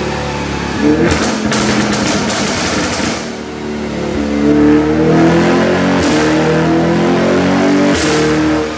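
Stage 2 tuned Audi RS6's twin-turbo V8 on an extreme exhaust, revved while the car stands still: the revs jump about a second in and fall back with a burst of crackling pops, then rise again from about four seconds and hold, with sharp bangs near six and eight seconds before dropping off. The pops and bangs come from the tune's overrun crackle map.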